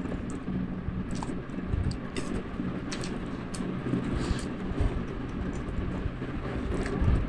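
Chewing and slurping of spicy instant noodles, with short, irregular mouth clicks and smacks, over a steady low hum.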